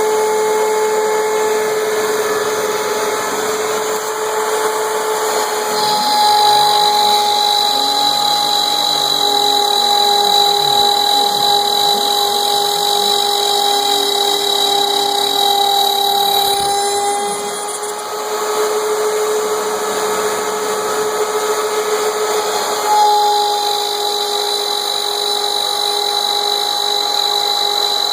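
CNC router spindle with a 1/4-inch flat-end bit running steadily under cut at a 15 in/min feed, a high whine that shifts pitch slightly as the load changes. A vacuum runs with it for dust collection. A fainter, lower whine sweeps up and down twice in the middle.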